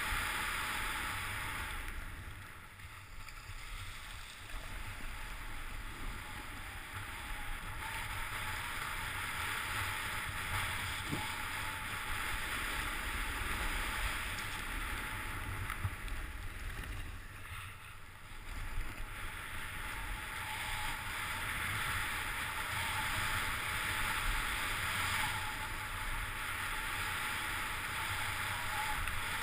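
Skis hissing as they slide over snow on a fast descent, with wind rumbling on the microphone. The hiss eases off twice, about two to four seconds in and again around eighteen seconds.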